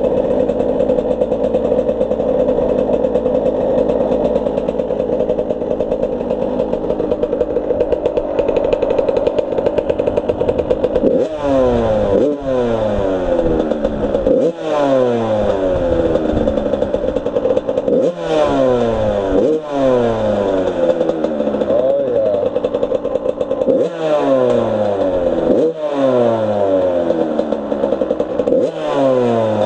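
Suzuki RM85 two-stroke dirt bike engine running at a steady idle, then from about eleven seconds in revved in repeated quick throttle blips, each rising sharply and falling back, about every one to two seconds.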